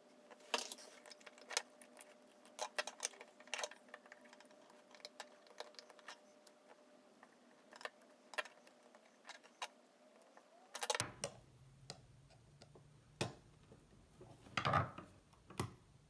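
Irregular small metal clicks and scrapes as the pawl in the head of a disassembled quarter-inch-drive ratchet is picked and pried at with a small tool, with louder clusters about eleven and fifteen seconds in.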